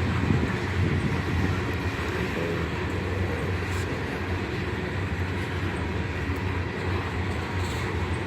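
Hopper cars of a freight unit train rolling past, a steady rumble of steel wheels on the rails.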